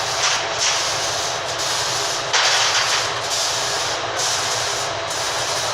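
Welding-shop ventilation fan running, a loud steady rush of moving air with a brief louder surge about halfway through.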